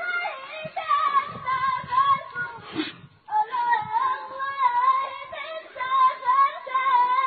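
A high voice singing unaccompanied in a traditional Bedouin style, with long wavering, ornamented held notes and a brief pause about three seconds in.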